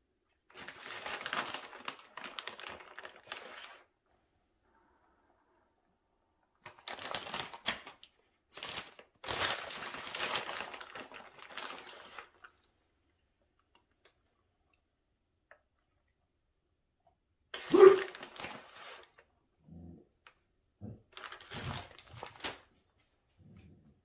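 Plastic bag of shredded cheese crinkling and rustling in several bursts while cheese is shaken out of it, with a short, louder handling noise about eighteen seconds in.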